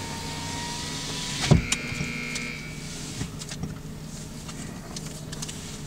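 Automatic tunnel car wash heard from inside the car: water spraying over the car and wash machinery running. A sharp knock comes about a second and a half in, followed by a short high squeal and a few scattered clicks.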